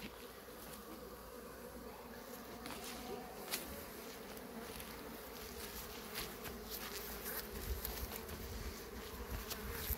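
Honeybees buzzing around their hives: a steady hum of many bees in flight at the hive entrances, with a low rumble near the end.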